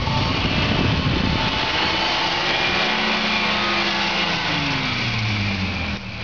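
Volvo C304 (TGB-13) 6x6 truck's straight-six petrol engine running, its pitch falling about four seconds in as the revs come down.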